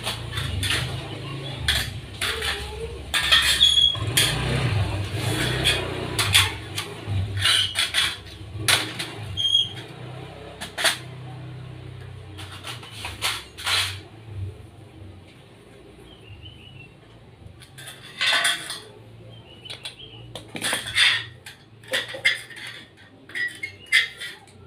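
Light-gauge steel frame pieces clanking and clicking as they are handled and fitted together, in irregular knocks, with a low rumble under the first half.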